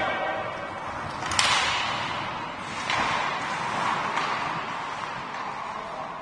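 Ice hockey play: sharp cracks of stick, puck and boards, the loudest about a second and a half in and two fainter knocks a few seconds later, over a steady background din.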